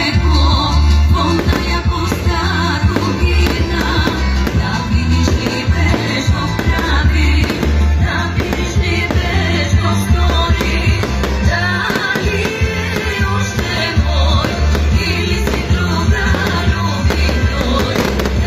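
Loud amplified music with a steady, heavy bass beat, with fireworks bursting and crackling over it.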